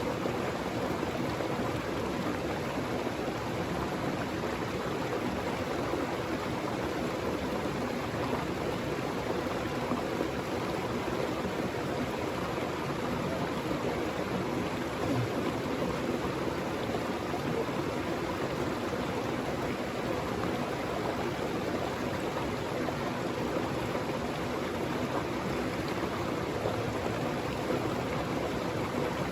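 Flowing stream water, an even, unbroken rushing noise.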